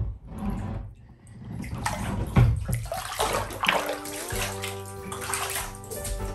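Bath water sloshing and splashing in a filled bathtub in a small, echoing bathroom. Background music comes in about four seconds in and runs alongside the water.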